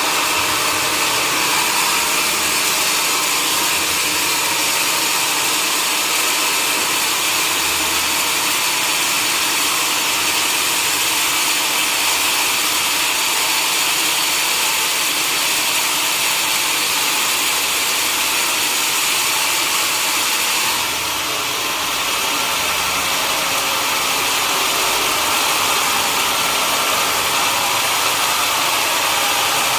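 Sawmill saw and its engine running steadily, a loud even noise with a brief dip in level about two-thirds of the way through.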